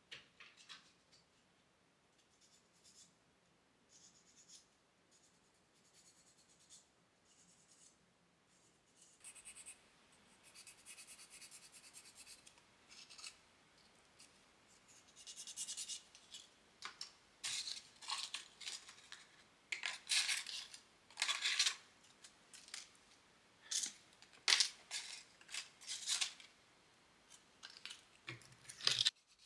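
Small pieces of sandpaper rubbed by hand over a baked polymer clay charm, wet-sanding it: faint clicks and rustles at first, then from about nine seconds in, runs of short scratchy strokes that grow louder toward the end.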